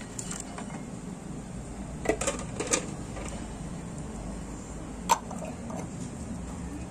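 A few light clicks and taps of kitchen items being handled, a small cluster about two seconds in and one sharp click about five seconds in, over a low steady hum.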